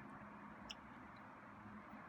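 Near silence: faint steady background hiss with a low hum, and one faint click about two-thirds of a second in.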